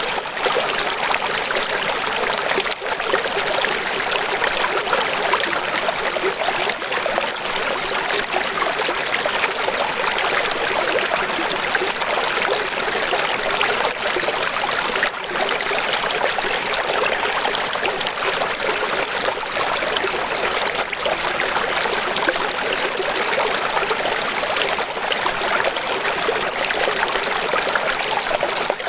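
Running water flowing steadily: an even, unbroken rush with fine splashing detail and no change in level.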